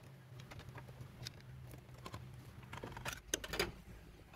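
Light irregular clicks and taps of hands and small metal parts or tools working around an engine's timing cover, with a cluster of sharper clicks about three seconds in, over a faint steady low hum.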